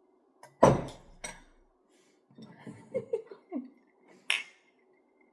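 Tableware knocking on the table with a deep thud about half a second in, then soft eating sounds and a short, sharp clink a little past four seconds.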